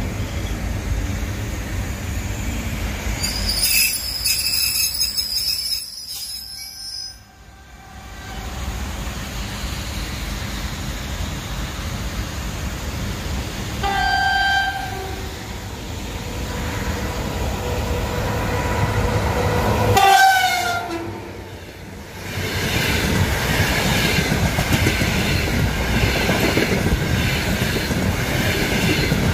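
The EP3D electric multiple unit's wheels give a high squeal for a few seconds as it slows into the stop. A train horn then sounds twice, once about halfway through and again some six seconds later, the second blast dropping in pitch. The EP1M locomotive's passenger express then runs past with a steady clickety-clack of wheels over rail joints.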